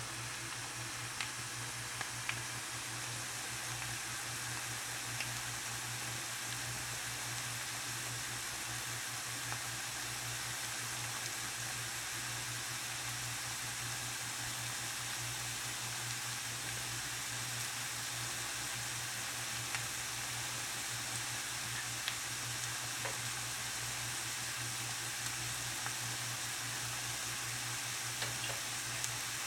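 Food sizzling steadily in a frying pan, with scattered small pops and crackles.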